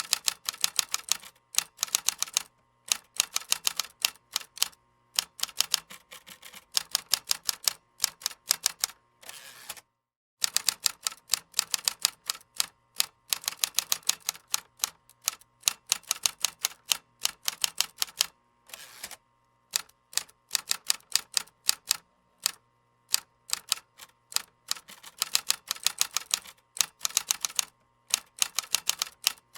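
Computer keyboard being typed on: runs of rapid key clicks broken by short pauses, with a brief full break about ten seconds in.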